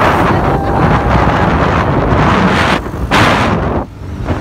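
Heavy wind buffeting on a phone's microphone while riding on a moving motorcycle, easing briefly near the end.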